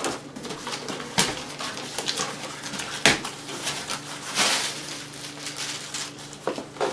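Cardboard shipping box being handled and opened by hand: sharp knocks about one and three seconds in, and a rustling tear as the flaps are pulled apart a little past four seconds in, with a steady low hum underneath.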